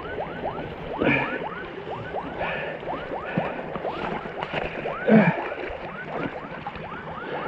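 Garmin incident-detection alarm sounding: a rapid, evenly repeating electronic chirp, about three a second, set off by the crash. Two brief louder sounds come about a second in and a little after five seconds in.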